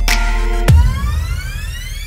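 Background electronic music. The beat gives way to a hit about two-thirds of a second in, followed by a rising sweep that climbs steadily in pitch.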